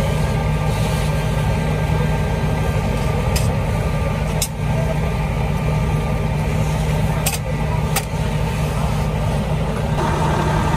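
Fire engine's diesel engine running steadily with a constant low hum. A few short sharp clicks sound over it.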